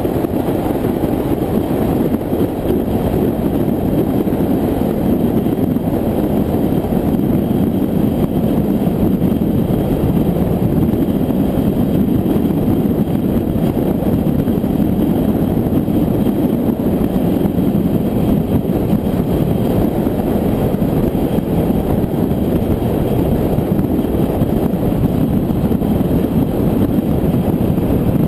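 Steady road and wind noise from a car cruising at highway speed, picked up by a camera mounted outside on the hood. It is an even, low rumble with no distinct engine note and no sudden events.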